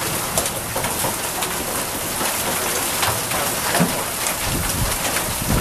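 Hail falling in a storm: a dense, steady hiss full of countless small ticks as the stones strike.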